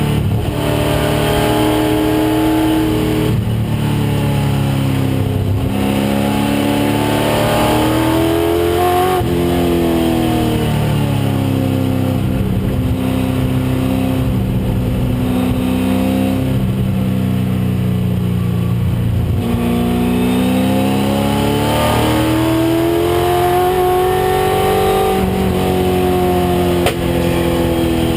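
1996 Ford Mustang race car's engine at full race load, its pitch climbing and then falling away several times as it accelerates, shifts and lifts for corners. This is the engine the driver calls a bad motor with issues in this race.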